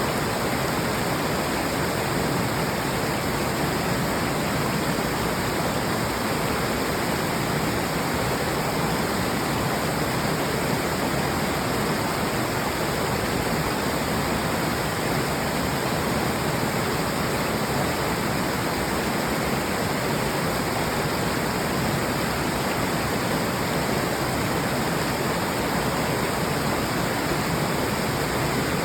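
Waterfall rushing: a steady, even noise of falling water that does not change.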